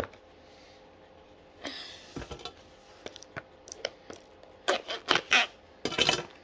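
Cardboard product box being handled and pried at while someone looks for the way to open it: scattered taps and scrapes, then a run of louder scraping and rustling about two-thirds through and again near the end.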